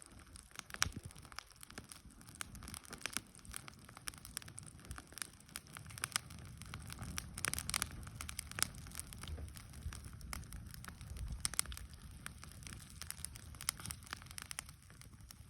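Bonfire crackling: irregular sharp pops and snaps of burning wood over a low steady rumble of the flames.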